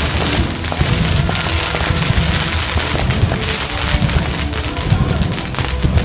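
Pyrotechnic flame jets and fountain fireworks hiss and whoosh, with a cluster of crackling about four and a half seconds in. Loud show music with a heavy bass runs underneath.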